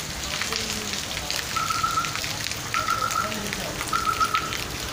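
Steady rain falling on wet ground, with many scattered drop ticks. A short high trill repeats three times, a little over a second apart.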